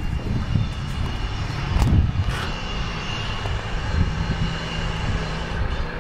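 Wind buffeting the camera microphone: an irregular low rumble, with a few light handling clicks about two seconds in.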